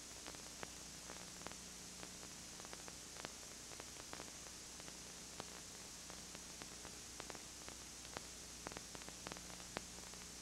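Steady tape hiss and low electrical hum with scattered faint clicks and crackles at irregular intervals: the empty noise floor of a surveillance videotape transfer with no recorded sound.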